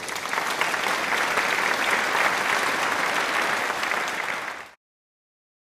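Crowd applauding: dense, steady clapping that cuts off suddenly a little before the end.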